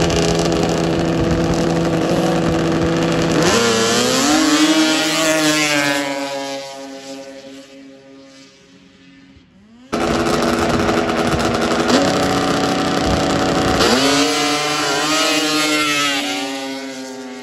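Snowmobile engines at full throttle racing down a grass drag strip, their pitch dropping as they pass and then fading away. It happens twice; the second run starts abruptly about ten seconds in.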